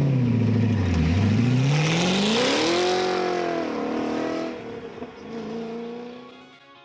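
A performance car's engine revving hard and accelerating past. The pitch dips, climbs steeply, then falls away as the car passes with a rush of noise, and the sound fades out near the end.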